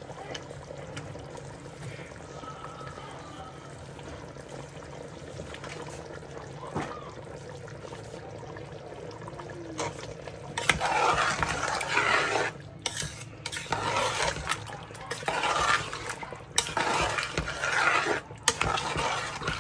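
Food being stirred in a cooking pot: after a stretch of only a steady low hum, from about halfway through come repeated bursts of stirring and scraping, each a second or two long with short pauses between.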